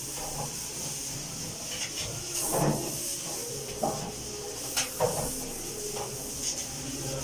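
Sponge scrubbing a stainless steel sink, a steady hissing rub with a few light knocks against the metal, the most distinct about two and a half and five seconds in.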